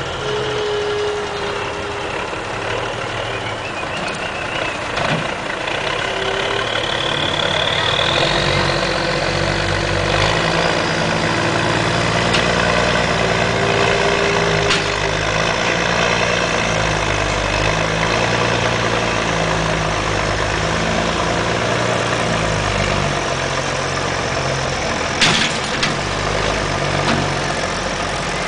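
Heavy diesel semi-truck engine working under load as the tractor slowly pulls a flatbed trailer carrying a large billboard. The engine grows louder about eight seconds in, and there is a single sharp knock near the end.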